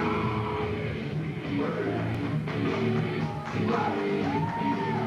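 Rock music with a singing voice over guitars and drums.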